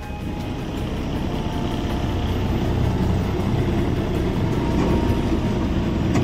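A truck's engine running as the truck creeps forward in stop-and-go traffic, a steady low rumble that gradually gets a little louder.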